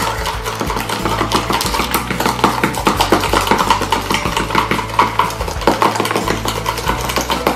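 Metal spoons rapidly whipping dalgona coffee mixture by hand in plastic tubs, making a fast, continuous clatter of metal striking plastic.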